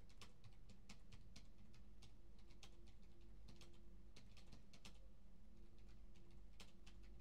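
Faint office background: irregular clicking of typing on a computer keyboard, several keystrokes a second, over a low steady hum.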